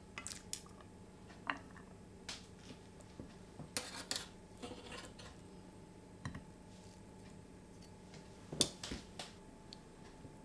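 Metal tongs and other kitchen utensils clinking against a ceramic plate, a pan and a wire rack while food is plated: scattered light clicks and taps, the loudest a little before the end.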